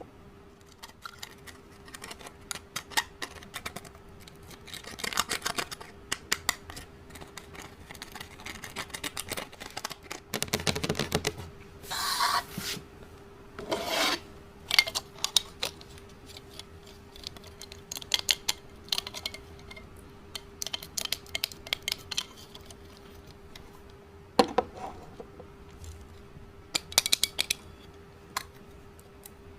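Makeup being scraped, broken up and handled for mixing into slime: irregular clicks and short scraping bursts, with a faint steady hum underneath.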